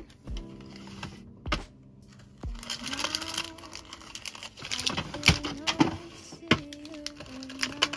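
Cellophane bags crinkling and clear plastic organizer drawers clicking as bagged acrylic keychains are handled and pulled out, with several sharp clicks among the rustling.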